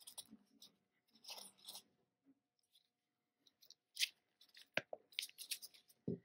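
Plastic paint cups and stir sticks being handled: scattered light clicks, taps and crinkles, with two sharper knocks near the end.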